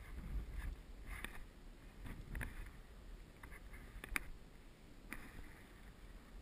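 Scattered scrapes and knocks of a climber's gloves and boots on rock, the sharpest knock about four seconds in, over a low rumble of wind on the microphone.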